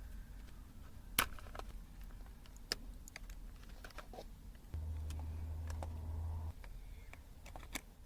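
Small clicks and taps of plastic parts and small tools as a Bluetooth keyboard is handled and taken apart, with a sharp click about a second in. Near the middle a low, steady hum runs for under two seconds and stops.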